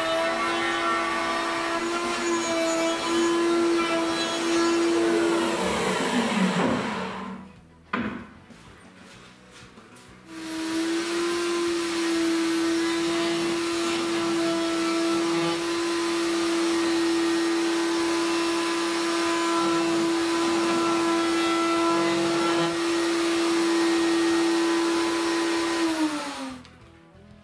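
Table-mounted router running at high speed with a steady high-pitched whine, cutting a chamfer on a board pressed over the bit. It winds down about six seconds in, one click follows near eight seconds, and it starts again near ten seconds, running until it winds down near the end.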